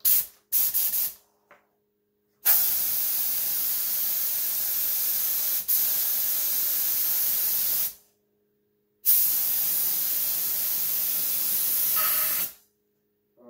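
Gravity-feed compressed-air spray gun hissing as it sprays paint onto an RC car body: two short blasts, then two long passes of about five and three seconds with a short pause between.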